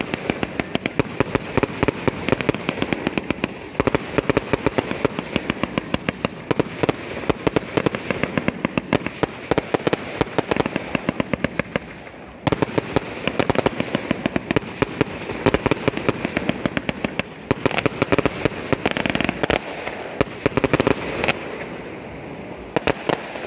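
Fireworks display: a dense barrage of rapid bangs and crackling from aerial shells and crackling stars. There is a short lull about halfway through, and the firing thins out near the end.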